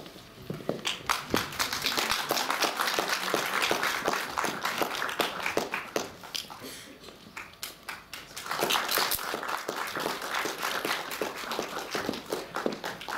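Audience applauding, a dense patter of hand claps that thins out about halfway through and picks up again.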